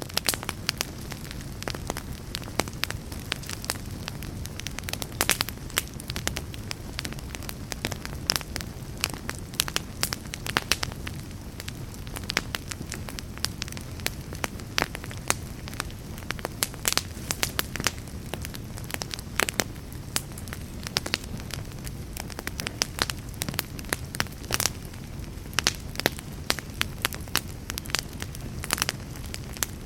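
Fire burning in a fireplace, crackling with frequent sharp pops of varying loudness over a steady low rush of flames.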